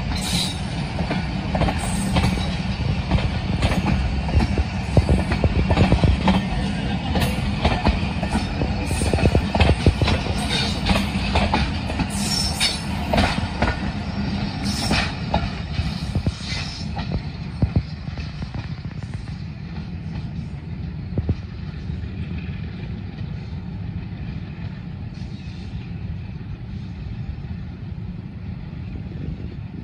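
Pakistan Railways express passenger coaches running close past, wheels clattering over the rail joints with a heavy rumble. The last coach goes by about halfway through, and the train then draws away, the clatter thinning to a fading rumble.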